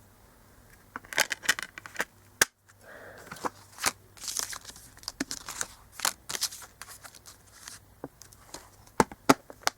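Handling noise from a Blu-ray steelbook case and its packaging: scattered clicks, taps and rustling, with sharper clicks about two and a half seconds in and twice near the end.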